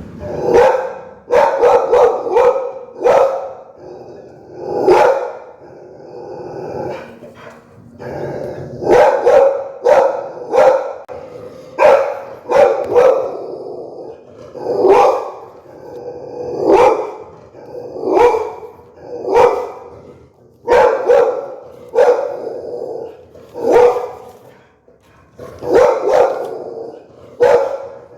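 Pit bull barking fiercely and repeatedly: single barks and quick runs of two or three, about every second or two, with a brief lull about a quarter of the way in.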